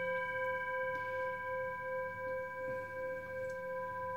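Tibetan singing bowl resting on an open palm, ringing on after a strike: a steady tone with several higher overtones sounding together, the lowest tone slowly pulsing.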